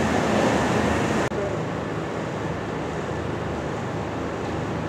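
Steady rushing noise of a restaurant kitchen full of pressure cookers on gas burners. About a second in, the bright hiss cuts off to a duller, quieter background hum.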